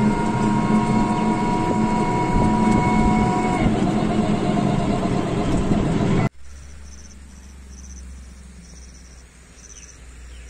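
Engine and road noise from a moving vehicle: dense rumble with a few steady whining tones. It cuts off abruptly about six seconds in, giving way to a much quieter low hum with faint, high insect chirps repeating in short pulses.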